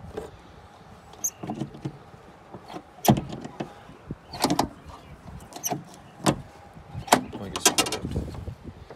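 Tailgate latch and liftglass of a GMC Suburban being worked by hand: a series of sharp metallic clicks and clunks, about half a dozen spread over several seconds, the loudest about three seconds in.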